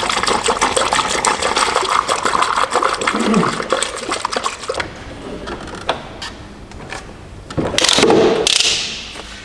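Coolant glugging and splashing as it is poured from a plastic jug into the car's cooling system, which is being refilled by gravity after new radiator hoses were fitted. The pouring lasts about five seconds and then stops. A short, louder rushing noise comes near the end.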